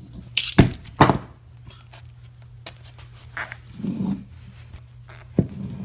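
Two loud, sharp knocks about half a second apart near the start, then a few quieter thuds and a click: heavy steel-cased transformers being handled and knocked about.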